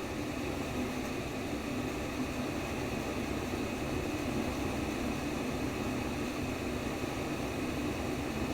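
Steady white noise for lulling a baby to sleep: an even, unchanging rushing hiss, fullest in the low-middle range.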